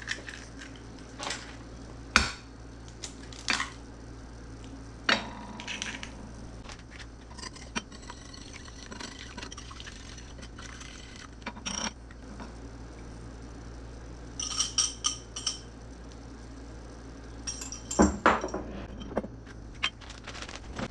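Eggs being cracked into a glass pie plate and beaten with a wire whisk: scattered knocks and taps, light ticking of the whisk, and a short run of bright clinks of metal on glass about two-thirds of the way through.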